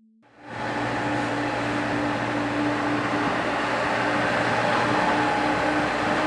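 Diesel engine of a Komatsu PC70 hydraulic excavator running steadily at working speed. It comes in about a third of a second in.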